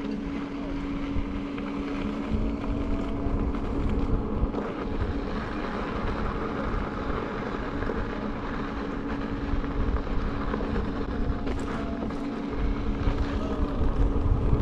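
Wind buffeting the microphone and the rumble of an electric unicycle's tyre rolling over a gravel dirt road, with a steady hum underneath. The rumble grows louder near the end.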